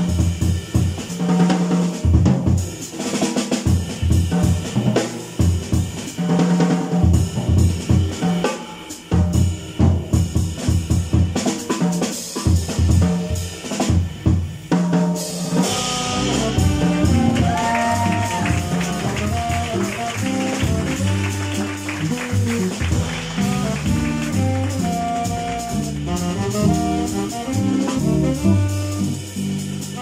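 Live jazz: a drum kit carries the first half alone in a busy solo on snare, rimshots and bass drum. About halfway through a cymbal crash brings the band back in, with saxophone, guitar and double bass playing held melody notes over the drums.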